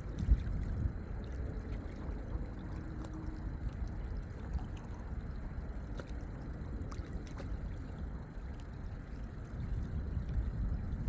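Small waves lapping at a lake's edge over a low, steady rumble, with one sharp knock right at the start and a few faint ticks.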